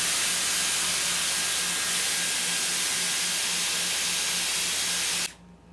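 Dyson Airwrap Multi-Styler Complete Long's curling barrel blowing air: a steady rush that cuts off suddenly about five seconds in as the styler is switched off.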